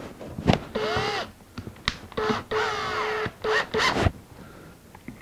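Cordless drill running in several short trigger bursts, its motor speed rising and falling, as it drives a tap to thread holes in a metal plate.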